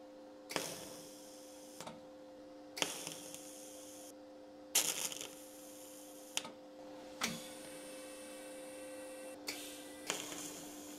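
TIG welder striking short test tack welds at 60 amps on laser-cut sheet steel: several brief bursts of arc noise, each starting sharply, over a steady low hum.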